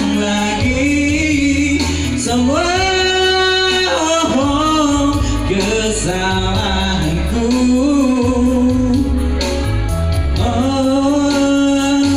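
Live amplified music: a man singing a slow Indonesian pop ballad with held, gliding notes over electronic keyboard accompaniment, heard through a PA system.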